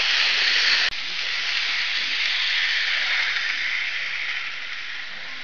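N-scale model diesel locomotive and wagons running on the track, a steady whirring hiss of the small motor and wheels on the rails, loudest as the train nears. It breaks off abruptly about a second in at a cut, then carries on more quietly and fades near the end.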